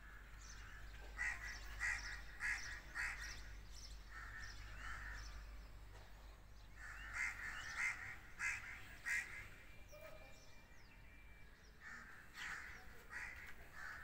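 Crows cawing, in runs of several short calls every few seconds.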